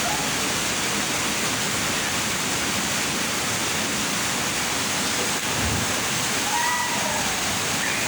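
Waterfall rushing steadily into a pool, with a dull low thump a little over halfway through.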